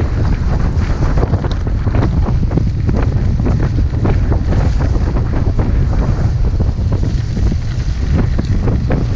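Wind buffeting an action camera's microphone on a moving e-bike, a loud, steady roar, with frequent short knocks and rattles from the bike jolting over a rough, muddy lane.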